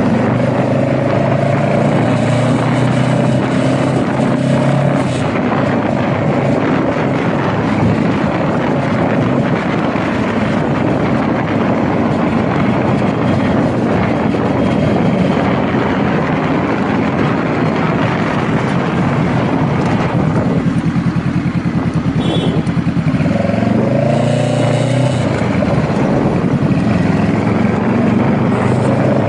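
Honda Rebel motorcycle engine running under way, with heavy wind rush on the microphone. About two-thirds of the way through, the engine note drops away for a few seconds, then rises again as the bike accelerates.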